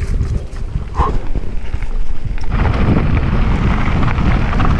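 Wind buffeting the microphone while on the move, a heavy low rumble that grows louder and rougher about halfway through.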